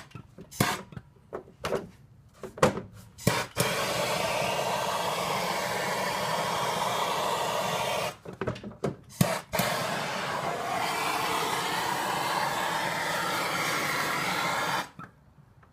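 A heat tool runs with a steady rushing noise while softening cracked plastic on a fan shroud before it is welded. It runs in two long stretches, broken by a few seconds of handling clicks and knocks, and cuts off suddenly near the end. The first few seconds are also handling clicks and knocks.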